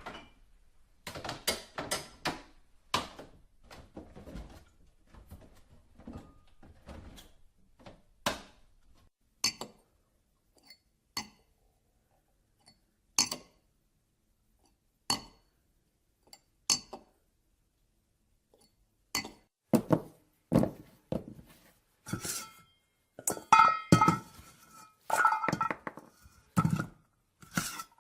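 Household clinks and knocks, like dishes and glassware being handled: a string of separate sharp impacts, thickening near the end into ringing clinks.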